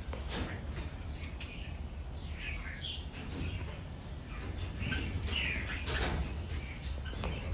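Red-whiskered bulbuls giving short, scattered chirps and calls, with a couple of sharp taps among them.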